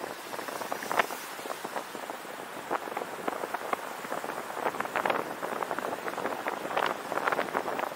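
Steady road and wind rush from a moving car, picked up by a car-mounted 360 camera, with irregular crackling ticks on the microphone that grow denser near the end.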